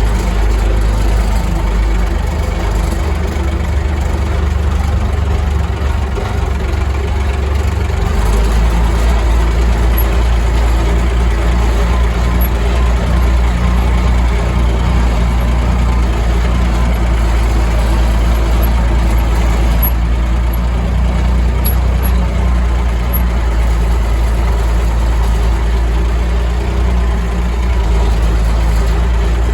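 Diesel tractor engine running steadily, with a deep hum that wavers from about two to eight seconds in.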